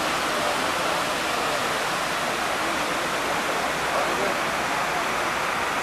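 Steady rush of the 9/11 Memorial's reflecting-pool waterfalls, water sheeting down the pool walls, with people's voices faintly beneath it.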